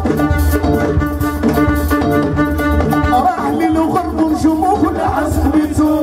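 Moroccan chaabi band playing live through a sound system: a violin melody over keyboard, electric guitar and hand drums keeping a steady beat.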